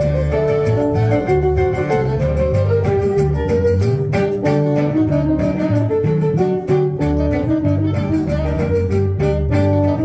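Live band music: guitars playing with a bowed violin melody over a steady bass line.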